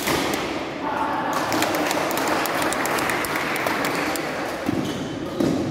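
Crowd noise in a badminton hall during a doubles rally, a steady din of spectators that swells in the middle, with a quick run of sharp clicks and taps about a second in.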